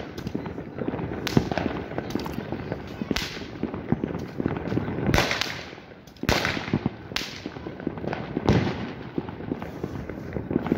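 Fireworks going off close by: a constant crackle of small bangs, with louder sharp reports every second or two that ring on briefly.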